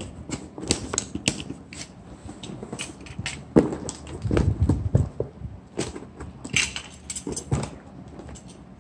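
Cardboard shipping box being handled while its plastic packing tape is picked at with fingers and then cut with a snap-off utility knife. The sound is irregular scraping, crackling and knocking, with one sharper knock about halfway through.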